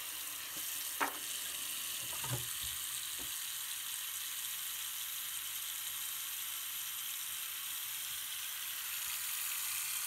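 Tap water running steadily into a sink basin and onto a sheet of paper lying in it, with a few soft knocks in the first few seconds.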